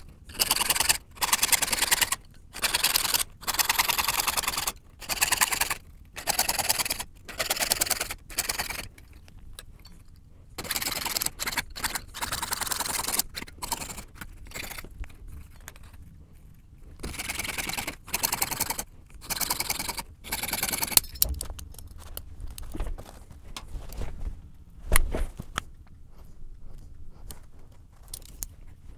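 Jeweler's saw cutting copper sheet on a wooden bench pin: rasping saw strokes in runs, about one a second, with short pauses. After about 21 seconds the sawing stops, leaving lighter clicks and one sharper click.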